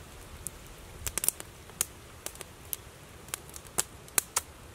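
Campfire crackling: irregular sharp pops and snaps over a low steady rumble.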